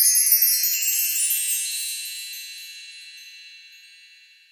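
Chime sound effect of a logo reveal: many high, bright tinkling tones struck together at the start, then ringing on and fading away over about four seconds.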